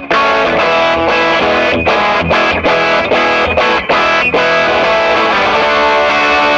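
1973 Fender Jazzmaster electric guitar played with distortion through a Swart AST Pro amp: chords cut short by brief stops several times, then a chord left ringing over the last couple of seconds.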